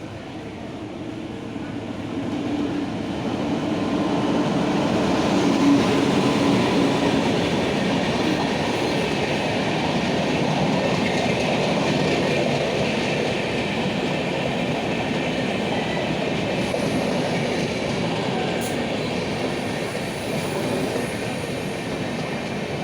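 Vaigai Express passenger train running. Its rumble builds over the first few seconds, then holds steady.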